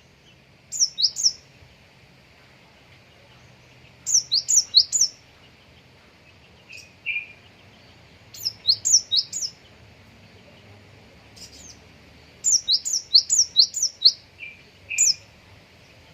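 A konin songbird singing: phrases of four to six quick, high, rising chirps repeated every few seconds, with a few lower single notes in between.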